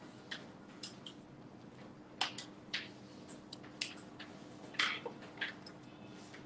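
Chalk tapping and scratching on a blackboard in short, irregular strokes as figures and letters are written, over a faint steady hum.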